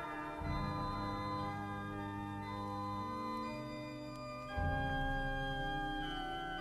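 Organ music playing long held chords, with new chords coming in about half a second in and again about two-thirds of the way through.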